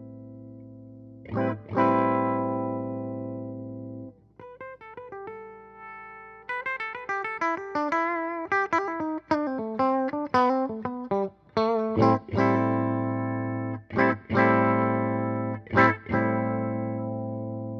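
1978 Alembic Series II electric string instrument being played: a held chord rings out, a second struck chord comes about a second and a half in, then a fast run of picked single notes, then a string of sharply struck notes and chords that each ring on.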